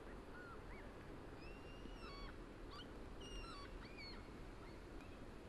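Small songbirds giving a string of short, varied chirps and whistles over a steady background hum of the city.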